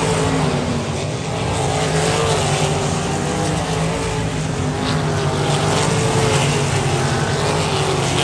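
Winged sprint cars' V8 engines running hard on a dirt oval, the engine note rising and falling as the cars go through the turns.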